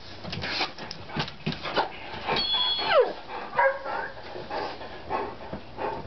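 Labrador retriever giving a loud, squeaky vocal yawn: a high squeal that slides steeply down in pitch about two and a half seconds in, followed by a shorter whine. Scuffling clicks run underneath.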